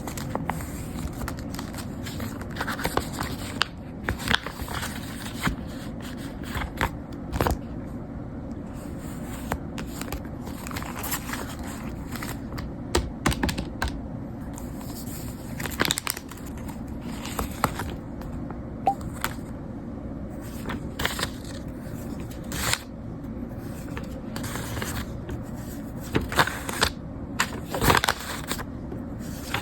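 Hands handling paper and small objects: rustling, scraping and scattered light clicks at an irregular pace, over a steady low hum.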